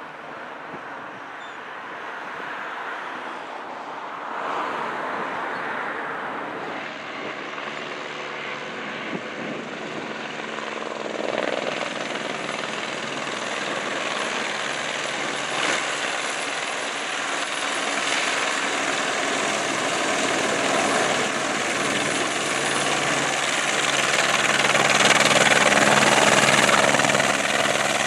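Single-engine turbine helicopter approaching to land, its rotor and turbine sound growing steadily louder, loudest near the end.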